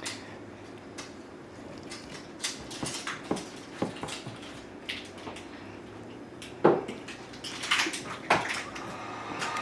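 Scattered light clicks and knocks from dishes and a sauce bottle being handled during tasting. The loudest knock comes about two-thirds of the way in, followed by a few quick clicks.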